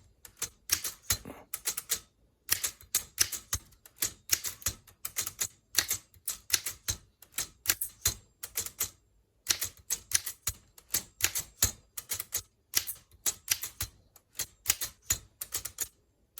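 1923 Underwood 3-bank portable typewriter being typed on: its typebars strike the platen in quick runs of sharp clacks, several a second, with a couple of brief pauses, as each key is struck three times in turn.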